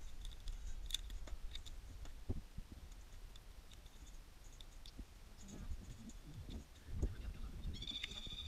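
Cooked blue swimmer crab being broken apart by hand: shell cracking and legs snapping off in scattered small clicks and crackles, with a few soft knocks. A short high-pitched tone sounds near the end.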